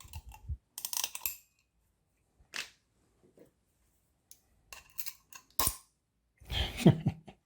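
Small metallic clicks and scrapes from a flattened bicycle spoke prying at the circular wire retaining spring inside a small LED torch head. There are a few sharp separate clicks, then a louder cluster of knocks and handling bumps near the end as the spring is worked out.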